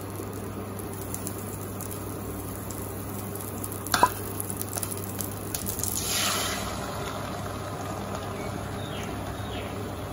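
Butter sizzling faintly in a nonstick pan on an induction cooktop, with a sharp click and brief ring about four seconds in. About six seconds in, beaten egg is poured into the hot butter and sets off a louder sizzle that then settles.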